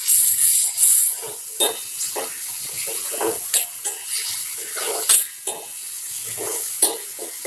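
Tomatoes and onions sizzling in hot oil in a kadai while they sauté, with a spoon stirring and scraping against the pan in short, irregular strokes.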